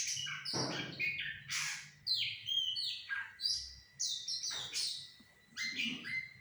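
Goci bird song used as a lure call: rapid phrases of short, high chirping and whistled notes, many of them falling in pitch, with a short pause about five seconds in. A faint steady high tone sounds underneath.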